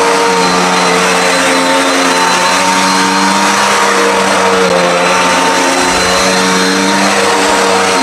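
Dirt Devil Endura Max bagless upright vacuum cleaner running on carpet. Its motor gives a steady, loud hum over a rush of air, and the pitch shifts slightly up and down as the machine is worked.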